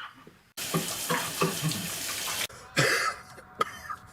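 A man coughing in short fits over the steady hiss of running water. The water cuts off suddenly about two and a half seconds in, and two or three more coughs follow.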